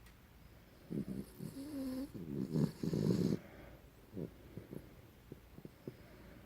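Mixed-breed dog snoring in its sleep: a loud, rattling snore starting about a second in and lasting a couple of seconds, then a few short, softer breaths.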